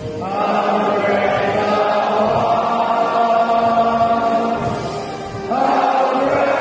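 A large group of schoolboys' voices singing together, holding long drawn-out notes, with a new phrase starting about five and a half seconds in.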